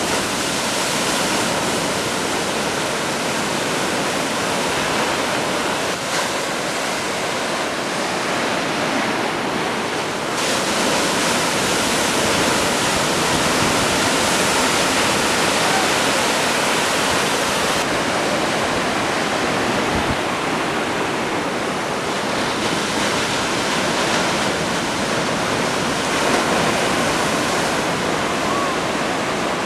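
Steady rushing noise of surf and wind, growing slightly louder about ten seconds in.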